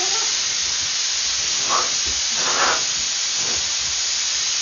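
Compressed-air blow gun hissing in one loud, steady, unbroken blast.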